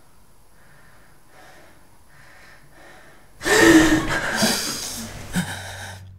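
A man's soft, even breathing in sleep, then about three and a half seconds in a sudden loud gasp as he jolts awake from a nightmare, trailing off into heavy, ragged breaths.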